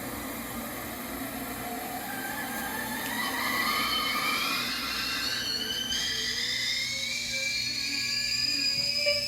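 A whirring mechanical whine that rises slowly and steadily in pitch, growing a little louder after a few seconds.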